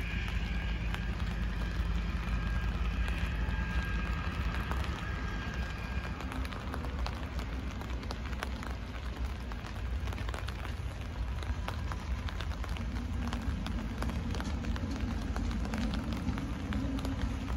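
Light rain pattering, with many scattered sharp drop ticks over a steady low rumble. A faint high whine fades out in the first few seconds, and a low hum swells near the end.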